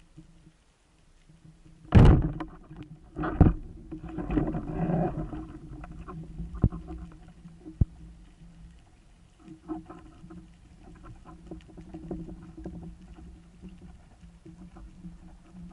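Underwater noise picked up through a speargun-mounted camera: a loud sharp crack about two seconds in and a second one just over a second later, then a few seconds of churning water and gear noise, settling into faint knocks and a low hum.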